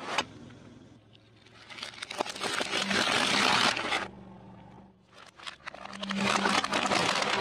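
A car tyre runs over a drink can, which bursts with a sharp pop just after the start. Then come two long spells of cracking and crunching as the tyre crushes things, the second as it flattens a plastic toy bus.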